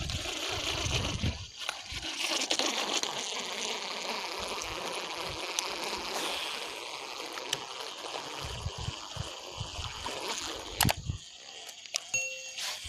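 Floodwater of a river running, a steady rushing hiss, with low rumbles and a sharp knock about eleven seconds in.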